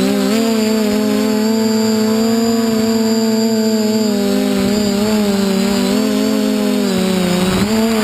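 DJI F450 quadcopter's four brushless motors and propellers buzzing steadily in flight, the pitch wavering slightly as the throttle shifts.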